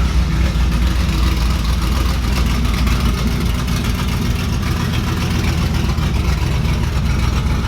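Vehicle engine idling with a deep, steady, pulsing low note.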